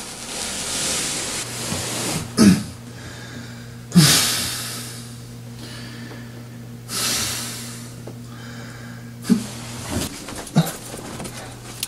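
A man breathing loudly in long, heavy breaths, with two sharp coughs about two and a half and four seconds in, and a few short clicks near the end, over a steady low hum.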